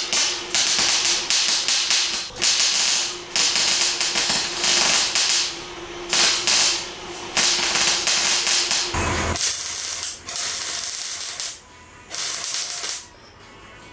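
Electric arc welding a bracket: the arc crackles in a string of short runs of about a second each, with brief breaks between them as the welder stops and restarts. A faint steady hum lies under the first two-thirds.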